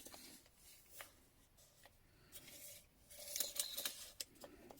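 Faint handling noise of small old hand tools and their wrapping: scattered light clicks and rustling, busier about three seconds in.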